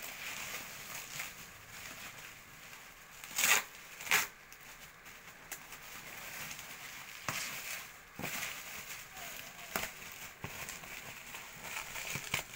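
Plastic bubble wrap crinkling and rustling as it is pulled and unwrapped by hand from a boxed food chopper, with scattered sharp crackles; two loud crackles come about three and a half and four seconds in.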